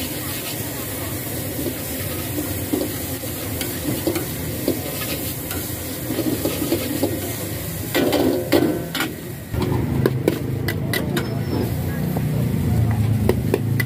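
Metal spatula stirring and scraping thin rice noodles around a hot wok over a gas burner, with steady sizzling. About eight seconds in comes a run of sharp scrapes and clanks against the wok, and a low rumble sits under the last few seconds.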